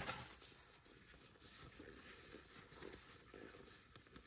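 Faint, soft rustling and sliding of trading cards handled by gloved hands, with a brief louder rustle right at the start.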